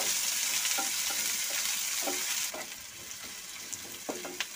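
Chopped onions sizzling in hot oil in a nonstick pan as a wooden spatula stirs them, scraping the pan now and then; they are being sautéed until soft. The sizzle drops off suddenly about halfway through.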